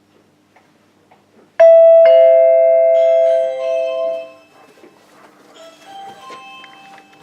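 Doorbell chime giving a two-note ding-dong, a high note then a lower one about half a second later, both ringing on and fading out over a couple of seconds.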